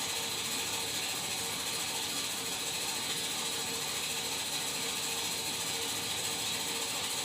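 Broken home furnace making a steady, rapid mechanical clicking with a faint hum running through it.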